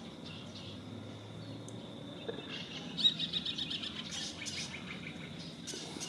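Parrots calling: a quick run of repeated high calls begins about two and a half seconds in and goes on to near the end, over a faint steady high tone.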